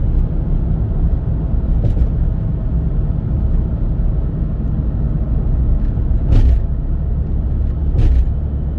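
A car driving on a motorway: steady low rumble of road and engine noise, with a few brief knocks.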